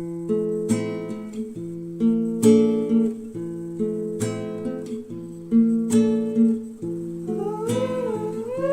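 Strummed acoustic guitar music with a chord stroke about every second and a half to two seconds. A gliding melody line rises and falls over it near the end.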